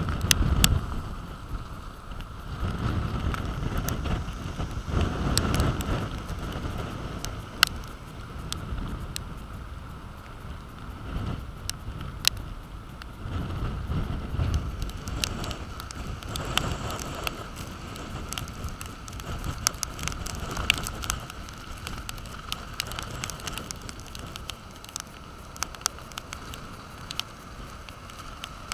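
Storm wind gusting hard on the microphone over breaking surf, with scattered sharp ticks and crackles striking it. The gusts are strongest in the first six seconds and again about fourteen seconds in.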